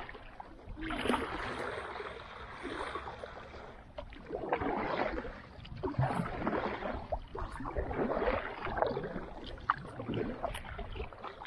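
Kayak paddle strokes through calm water: the blade dips and pulls with a splash and swish every couple of seconds.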